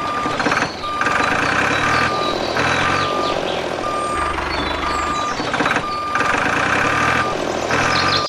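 Vehicle reversing beeper sounding, a short steady high beep repeating roughly once a second over continuous vehicle running noise.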